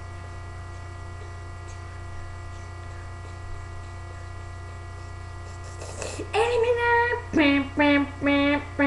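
A child sings a short wordless jingle after about six seconds of steady low electrical hum. It is one held note followed by several shorter, lower notes, sung as a winner's fanfare.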